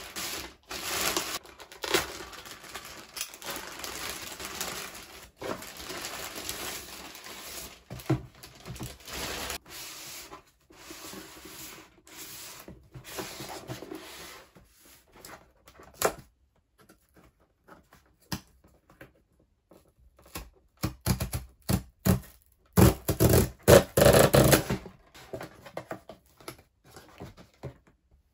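Hands handling a cardboard shipping box, with close-up scratching, tapping and rustling on the cardboard. There are a few scattered clicks in a quieter stretch past the middle. Near the end comes a louder burst of rustling and tearing as the box flaps are pulled open.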